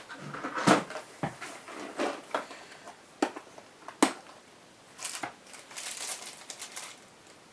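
Hands handling small airsoft gearbox parts and O-rings on a workbench: a few sharp clicks and knocks of plastic and metal pieces, then a stretch of rustling near the end.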